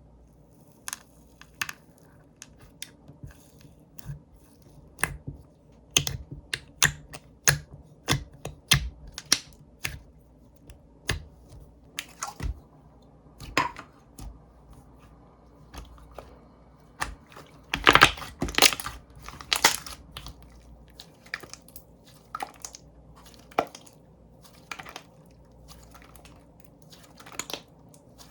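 Slime being pressed, stretched and folded by hand, making irregular sharp clicks and crackling pops, with a denser, louder run of them about 18 seconds in.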